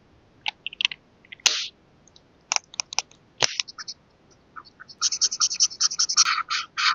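Scattered clicks and short scrapes of paper being handled, then, about five seconds in, a fast run of scratchy strokes across paper, several a second, as when colouring in or drawing.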